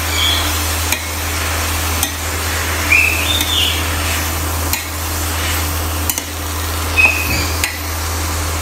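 Sliced pork belly sizzling as it is stir-fried in a stainless steel pan, with a spatula scraping and clicking against the pan about once a second, over a steady low hum.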